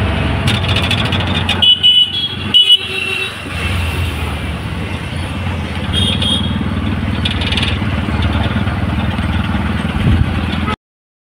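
Auto-rickshaw engine running and road noise heard from inside the open passenger cabin while riding, with short horn toots about two seconds in and again around six and seven seconds; the sound cuts off suddenly near the end.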